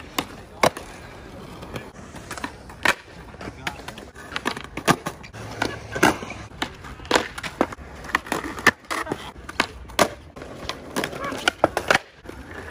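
Skateboards rolling on smooth concrete, with many sharp wooden clacks of boards popping and landing.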